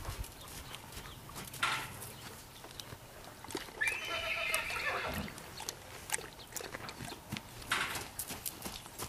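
Horse whinnying once about four seconds in, a call of about a second and a half that drops in pitch at its end, over scattered hoof thuds on sandy ground. Two short breathy rushes, about two seconds in and near the end, are the loudest sounds.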